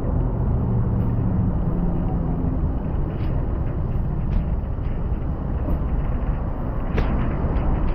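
Steady rumble of a Cybex Gazelle S stroller's wheels and kid board rolling over a concrete walkway, with a few sharp clicks, the sharpest about seven seconds in.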